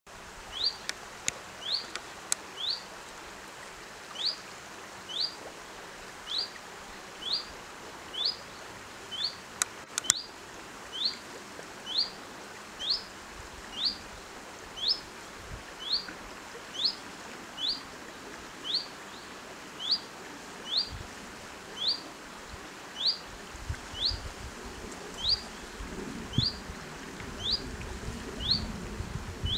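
A bird repeating a short, high, down-slurred call note about once a second, very regularly. A few sharp clicks come near the start and about ten seconds in, and a low insect buzz rises near the end.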